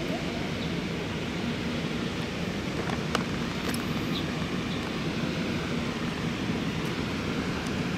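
Steady outdoor background noise with a faint low hum, and a light click about three seconds in.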